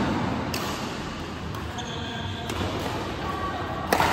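Badminton rackets striking a shuttlecock in a rally: several sharp hits at uneven intervals, the loudest one near the end, ringing in a large hall.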